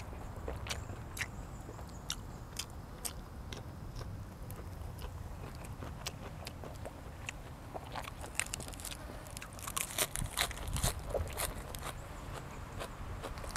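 A person chewing and crunching food, with scattered sharp clicks that come thick and fast about eight seconds in.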